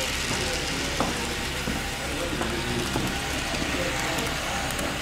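HO scale model freight cars rolling past on the track: a steady rolling hiss, with a sharp click about a second in and another near three seconds.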